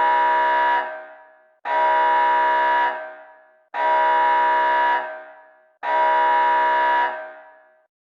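Emergency-alert attention signal: four loud blasts of a steady chord of several pitches. Each is held about a second and then dies away, and they come about two seconds apart.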